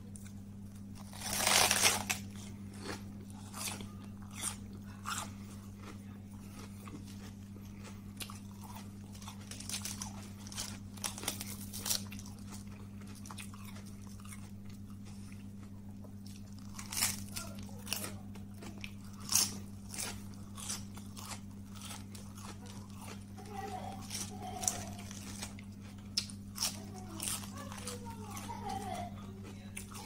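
Iceberg lettuce being bitten and chewed: a loud crisp crunching bite about two seconds in, then irregular crunches and chewing, over a steady low electrical hum.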